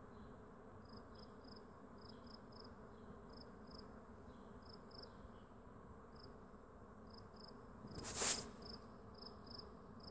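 Swarm of bees in flight, a faint steady hum, with short high chirps repeating through it. A brief loud rush of noise comes about eight seconds in.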